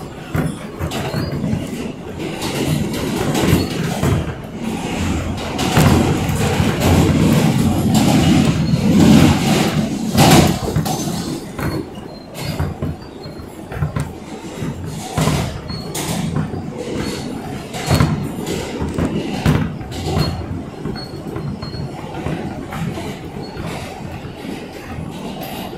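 New York subway train running in the tunnel, heard from inside the car: a steady rumble of wheels on rail that grows loudest in the first half, with sharp clacks over rail joints scattered throughout.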